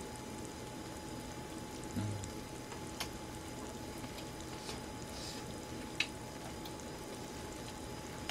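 Sukiyaki simmering in a pan on a portable gas stove: a soft, steady bubbling hiss, with a soft low thump about two seconds in and a few light clicks of chopsticks on the dishes.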